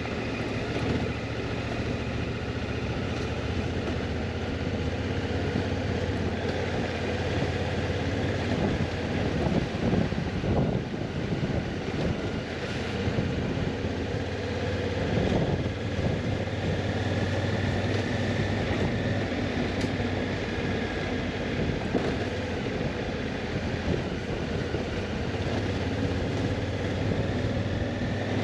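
Motorcycle engine running at a steady road speed while riding, with its pitch drifting slightly up and down, under wind noise on the microphone.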